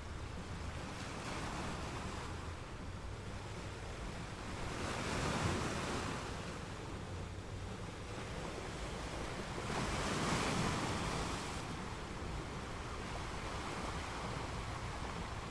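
Gentle ocean waves washing onto a sandy beach, with two louder surges about five and ten seconds in.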